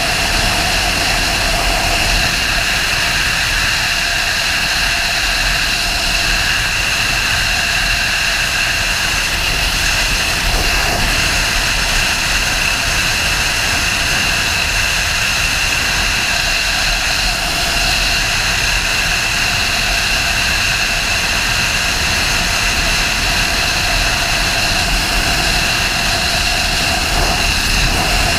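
Sportbike engine running at a steady cruising speed, its note holding an even pitch, mixed with heavy wind rush on the camera microphone.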